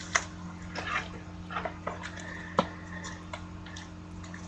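Faint scattered clicks and taps over a steady low hum.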